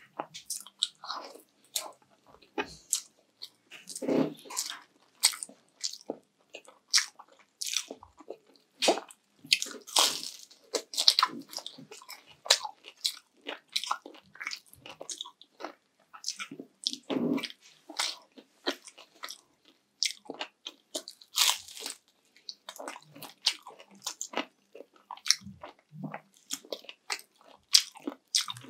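Close-up eating sounds: a person biting and chewing crunchy food, a quick irregular string of crisp crunches and mouth sounds throughout.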